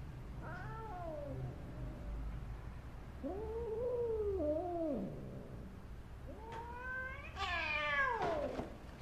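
Domestic cat yowling in distress: three drawn-out cries, a short one near the start, a longer one in the middle and the loudest, rising then falling, near the end. The cries are abnormal, taken for a sign that the cat is hurt or ill.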